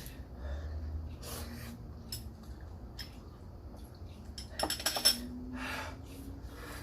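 Eating sounds: utensils clicking and clinking against a dish, with a quick run of louder clinks about five seconds in, and short breathy noises in between.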